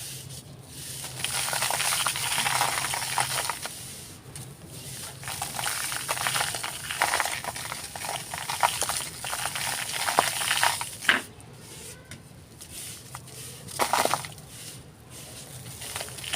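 Hands crumbling a dry, handmade ASMR texture block: gritty crunching and crackling in uneven bursts, with a sharper crack about eleven seconds in.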